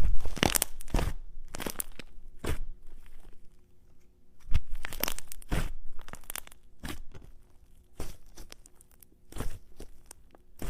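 Slime mixed with add-ins being squeezed and kneaded by hand, giving irregular crackling, crunching squishes in clusters with short pauses between.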